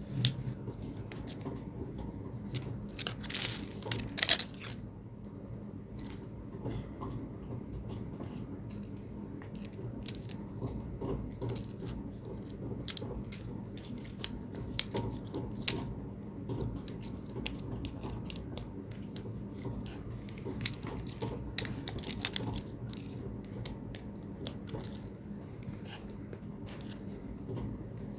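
Small metal clinks and clicks of an Allen key and loose metal parts being handled while a submersible pond pump is taken apart, irregular throughout, with louder clattering bursts about three to four seconds in and again past twenty seconds.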